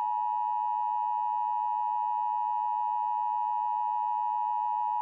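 A steady, unbroken electronic alert tone near 1 kHz with faint overtones, the kind of attention tone used in Emergency Alert System broadcasts.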